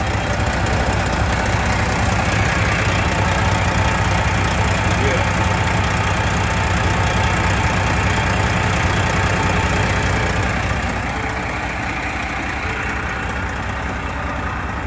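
Semi truck's diesel engine idling steadily, heard up close from the open engine bay. It is running so that a coolant hose leak patched with black tape can be checked, and the patch is not holding. The engine gets slightly quieter about eleven seconds in.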